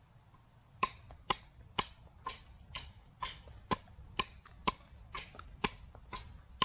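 Beavercraft adze chopping into a log to hollow out a bowl: a steady run of short, sharp strikes of the blade biting into the wood, about two a second, starting about a second in.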